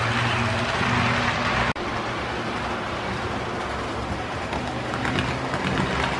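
Model trains running past on the layout: a steady hum and whir from their small electric motors and wheels on the track. The sound drops out for an instant about two seconds in.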